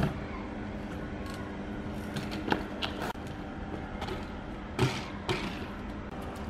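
BMX bike knocking against a concrete ledge and the pavement: a handful of sharp knocks from pegs, tyres and frame during a bailed grind attempt, the loudest about five seconds in, over a steady low hum.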